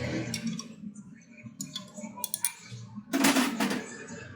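A run of short, sharp clicks and clinks, as of small metal tools and parts being handled, with a louder rasping burst lasting about half a second, starting about three seconds in.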